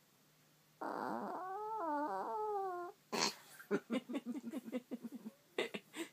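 Sleeping chihuahua snoring: a pitched, wavering, whine-like snore lasting about two seconds, then a run of short, quick snorts.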